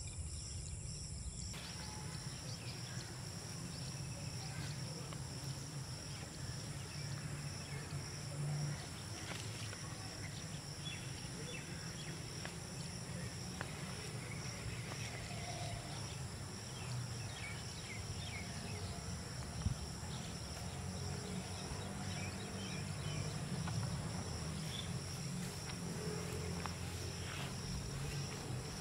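Steady outdoor chorus of insects, a continuous high-pitched trilling, over a low steady hum, with a few faint chirps and light clicks scattered through it.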